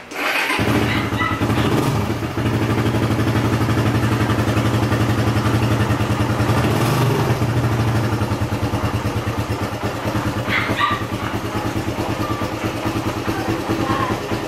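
Suzuki Raider 150's single-cylinder four-stroke engine starting on the electric starter and catching about half a second in, then idling steadily with an even, fast beat.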